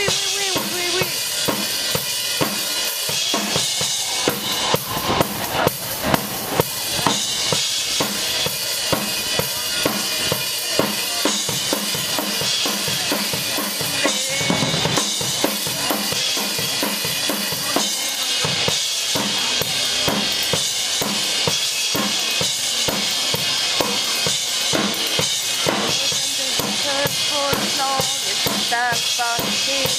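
Live acoustic drum kit played during a soundcheck: bass drum, snare and rimshots. Separate sharp hits stand out in the first few seconds, then the playing turns denser under a steady wash of cymbals.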